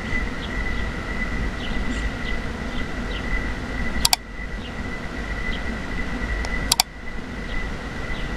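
Steady outdoor background of low traffic-like rumble, with a thin, steady high whine and faint short chirps over it. Twice, about four seconds in and again near seven seconds, a crisp mouse-click sound effect from the subscribe-button animation cuts in.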